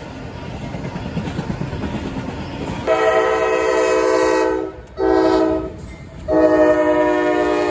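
CSX freight locomotive rumbling past, then its air horn sounding a chord of several tones: a long blast, a short one, and another long one held on.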